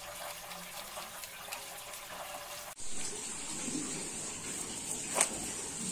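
Small aquarium-type pebbles poured and spread onto potting mix, a dense trickle of tiny clicks. The sound cuts off abruptly nearly three seconds in and gives way to a steady faint hiss, with one sharp click near the end.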